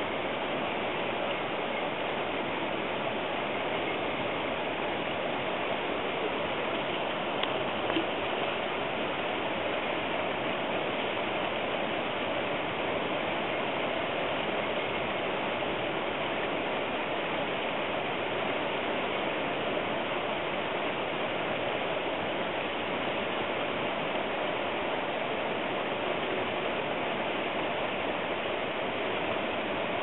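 Fast-running river rapids rushing over rocks: a steady, even rush of water.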